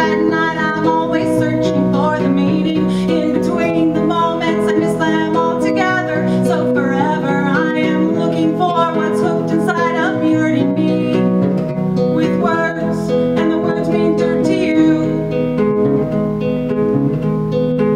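A woman singing while accompanying herself on a strummed acoustic guitar, live.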